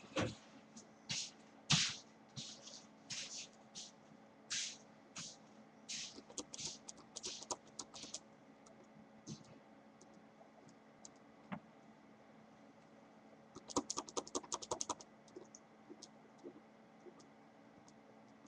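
Short scratchy strokes of a drawing tool on paper, coming irregularly for about eight seconds. About fourteen seconds in there is a quick burst of a dozen rapid strokes, like shading.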